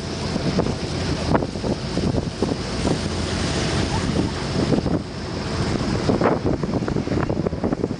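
Wind buffeting the microphone in irregular gusts over the rush of river water past a moving boat.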